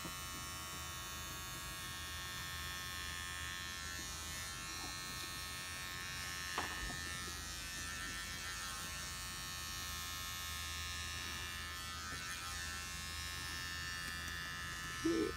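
Electric beard trimmers buzzing steadily as they shave the hair off a person's head, with a single small click about six and a half seconds in.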